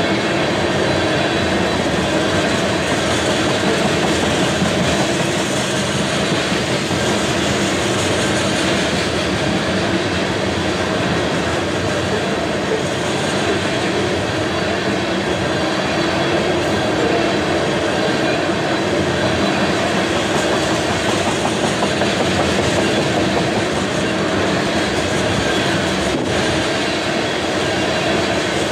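Freight train tank cars rolling past close by: a steady rumble of wheels on the rails that holds even throughout.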